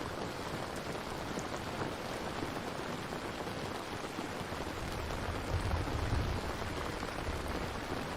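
Steady rainfall, with a low rumble swelling and fading about five to six seconds in.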